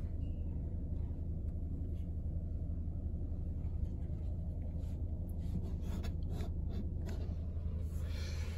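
Steady low rumble of a running Chevrolet car heard from inside its cabin, with a few faint light ticks and rustles in the second half.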